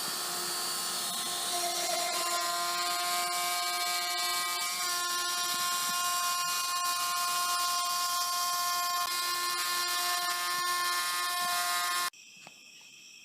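CNC router spindle with a 1/4 inch two-flute end mill cutting wood, a steady whine over a hiss with a few shifts in pitch, cutting off suddenly near the end.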